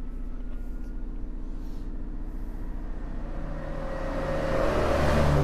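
Hot air rework station blowing onto a phone circuit board to melt the solder for a new power-amplifier IC: a rushing hiss swells in about three and a half seconds in and grows louder, over a steady low electrical hum.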